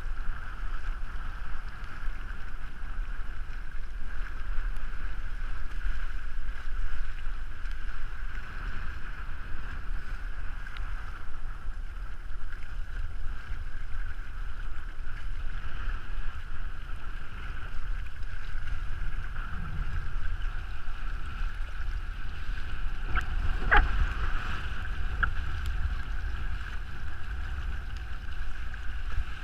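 Wind buffeting the microphone over the steady rush of water along the hulls of a Hobie Tandem Island sailing trimaran under sail, with one sharp knock about 24 seconds in.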